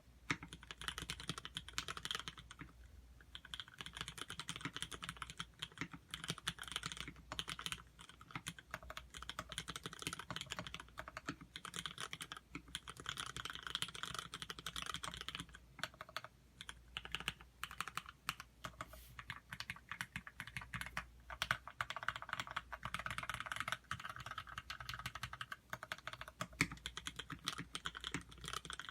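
Typing on a custom Lyn3 Dolphin v3 mechanical keyboard with 51 g springs: fast, continuous keystroke clicks with brief pauses.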